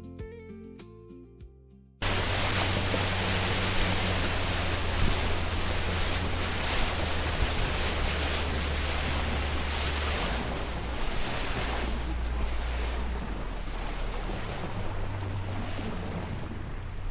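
Acoustic guitar music fading out, then an abrupt cut about two seconds in to loud, steady rushing wind noise on the microphone over a low engine drone, as on a moving boat.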